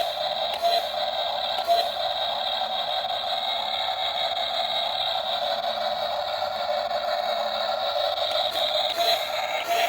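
Radio-controlled model excavator running: a steady, even whine with nothing deep in it and small flickers as it works.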